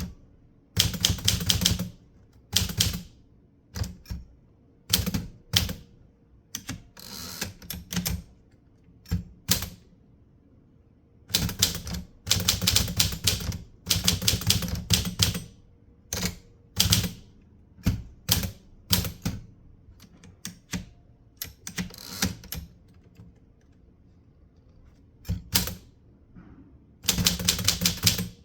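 Typewriter being typed on in uneven bursts of rapid key strikes, with short pauses between words and phrases.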